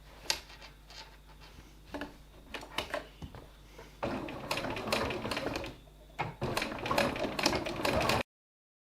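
Sewing machine stitching a seam in two runs, starting about four seconds in with a short pause near six seconds, then stopping abruptly. Before the stitching there are soft clicks and rustles of the work being handled and positioned.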